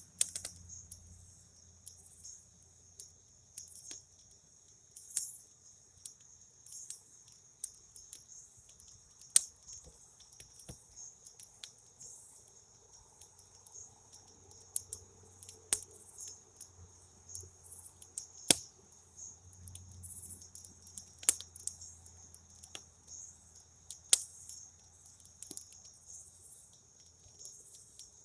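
Campfire crackling with irregular sharp pops, some of them loud, over a steady high chirring of crickets.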